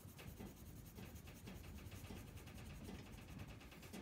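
Faint scratching of a colored pencil on paper in quick, repeated back-and-forth strokes, shading in an area of a drawing.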